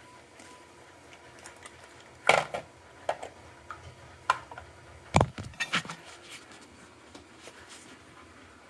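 A cluster of sharp clinks and knocks from small metal parts and tools being handled on a wooden workbench, the loudest about two seconds in and again about five seconds in.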